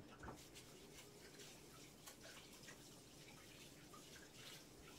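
Kitchen tap running faintly into a sink as hands are washed, with small splashes and drips.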